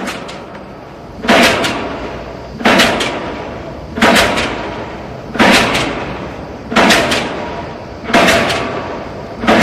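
Seven heavy slamming thuds, evenly spaced about a second and a half apart, each echoing on as in a large hall.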